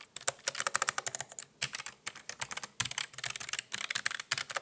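Typing on a Keychron K1 low-profile mechanical keyboard with brown switches: a quick, irregular run of key clicks, a little clickier and less dampened than softer boards.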